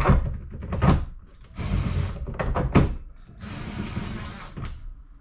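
Cordless power driver running in several short bursts, driving the ski pylon's mounting bolts into a Sea-Doo deck. The bolts are run in only loosely for now.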